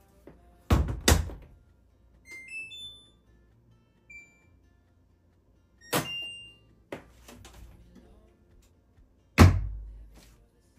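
Several sharp thunks, two close together about a second in, one about six seconds in and the loudest near the end, with a quick run of short high electronic beeps about two seconds in.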